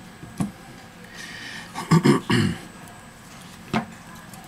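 Handling noise from a smartphone being worked on a silicone repair mat: a couple of sharp clicks, and a louder short rough sound about two seconds in.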